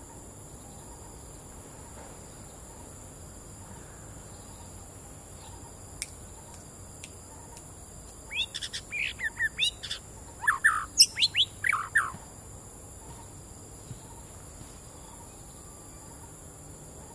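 White-rumped shama singing two short bursts of song about halfway through: first a run of quick high whistled notes, then lower, fuller notes with one sharp very high note among them. A steady high-pitched insect drone runs underneath.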